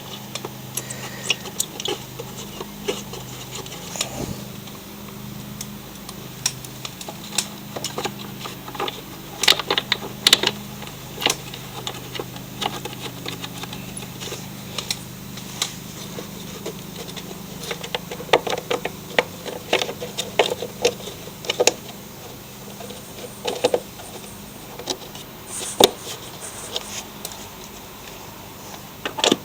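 Irregular clicks, knocks and clinks of hand tools and bolts as a belt cover is refitted to a mower deck, over a steady low hum.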